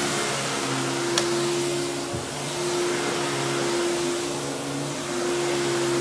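Simplicity 7350 upright vacuum's 12-amp two-stage motor running steadily, a hum with a rushing airflow hiss. One sharp click about a second in.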